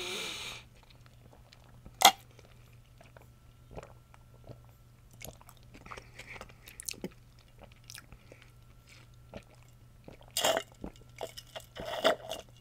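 Close-miked mouth sounds of chewing and swallowing: scattered small wet clicks, with one sharp loud click about two seconds in. Near the end come denser runs of clicks as water is sipped through a straw.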